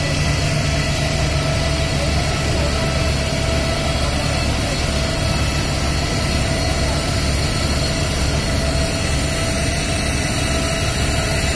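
Fire engine's engine running steadily to drive its pump, with a hose spraying disinfectant mist: a continuous low hum under an even hiss.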